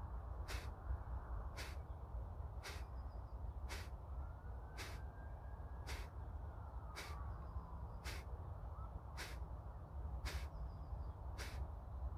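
Kapalbhati breathing: short, forceful exhalations through the nose, each a sharp hissing puff, evenly paced at about one a second. A low steady rumble runs underneath.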